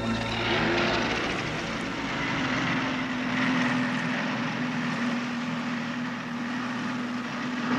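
Motor launch's engine running steadily under way, a constant drone over a steady hiss.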